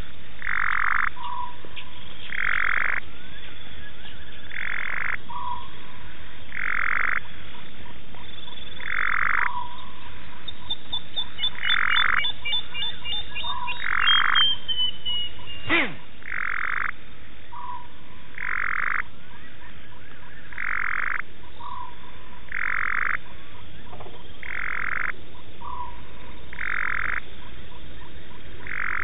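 Frogs calling at a waterhole: a call about every two seconds, each followed by a short, lower note.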